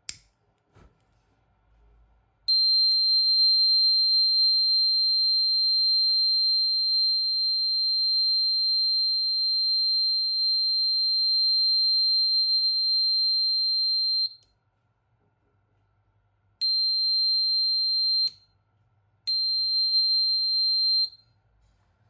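Piezo buzzer of a DIY LPG gas detector sounding one steady high-pitched tone for about twelve seconds, then two shorter beeps: the alarm set off by gas from a lighter held at the gas sensor.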